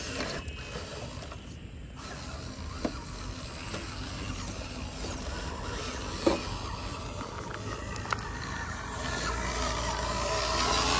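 Panel truck on a rough trail: steady running noise with mechanical rattling and a few sharp knocks, getting louder near the end.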